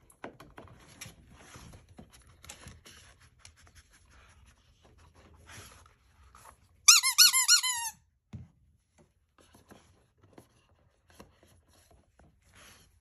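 A squeaky dog toy squeaked rapidly, about eight high squeaks within a second, about halfway through. Around it there is faint rustling and scratching of cardboard as dogs nose through an advent calendar box.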